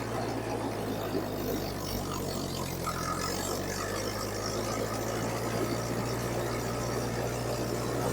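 Ferguson TEA20 tractor's four-cylinder petrol engine idling steadily after a start, with the starter motor no longer cranking now that the sticking starter switch has been replaced.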